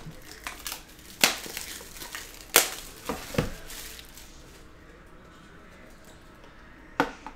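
Plastic shrink wrap being torn and crinkled off a cardboard trading-card box, with several sharp taps and knocks as the box is handled on its metal tin. The rustling and knocks are busiest in the first few seconds, and a last knock comes near the end.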